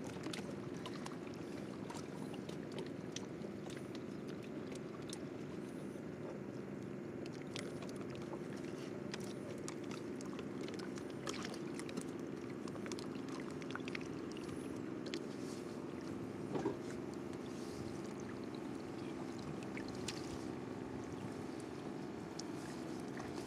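Small boat's motor running steadily, heard from aboard, with scattered light knocks and clicks.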